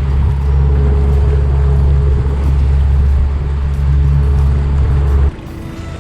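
Boat's outboard motor running under way, a loud steady low rumble that drops off sharply about five seconds in as the boat comes off the throttle.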